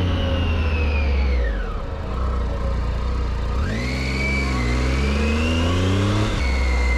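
Motorcycle engine on the move. The engine note falls as the bike slows, then rises again as it accelerates from about three and a half seconds in, dropping back abruptly near the end as with a gear change.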